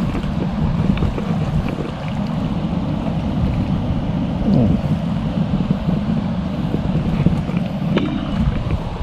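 Stream water rushing steadily, mixed with a low, gusty rumble of wind on the microphone.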